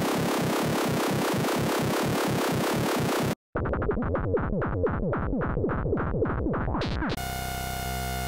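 Behringer CAT analog synthesizer loops played back in turn. First comes a dense, noisy loop pulsing about six times a second. After a brief gap there is a fast run of percussive zaps, each falling in pitch, and then a steady buzzing held tone near the end.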